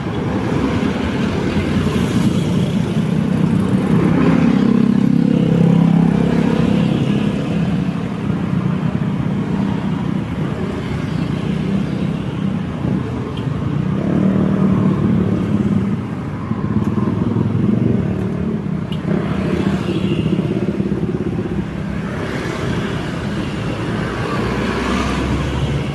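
Continuous road traffic: motor vehicles' engines and tyres passing by, a steady hum that swells louder several times as nearer vehicles go past.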